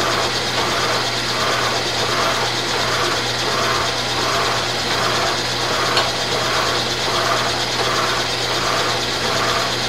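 Milling machine form-cutting teeth along a shaft of tough chrome hydraulic rod under flood coolant. A steady motor hum runs under a rhythmic pulsing cut at about two pulses a second, with a single sharp tick about six seconds in.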